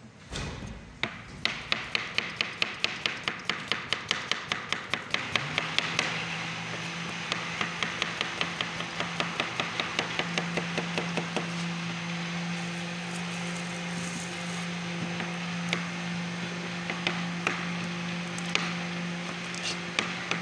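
Kitchen knife slicing cucumbers on a plastic cutting board: rapid, steady knocks of the blade striking the board, stroke after stroke. From about five seconds in a steady low hum runs underneath.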